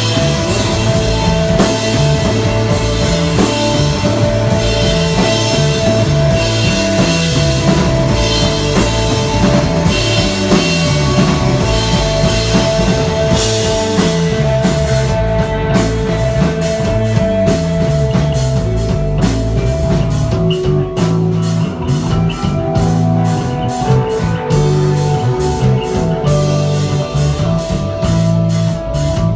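A desert rock band playing live: electric guitar holding sustained notes over a moving bass line and a drum kit. The cymbal hits stand out more clearly in the second half.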